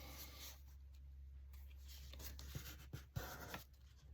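Paper and cardstock being handled and rubbed, with soft scratchy rustles and a few light taps near the end. A steady low hum runs underneath.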